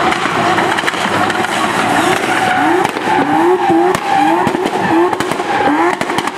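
Supercharged BMW E36 M3 straight-six held high in the revs during a burnout, its pitch climbing in short repeated rises about twice a second, over the hiss of spinning, squealing rear tyres.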